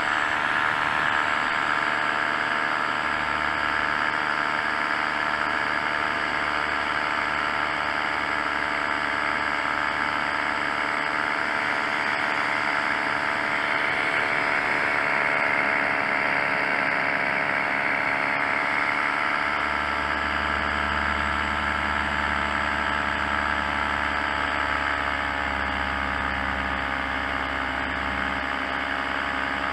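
Paramotor engine and propeller running steadily in flight, with a slight shift in pitch about halfway through.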